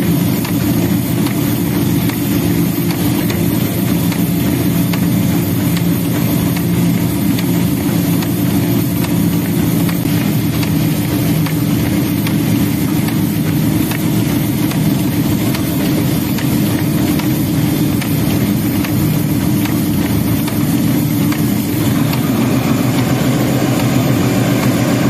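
Diesel locomotive engine running steadily under power, heard close from the front of the locomotive, over the even rumble and hiss of the train moving along the track past a freight train on the next line.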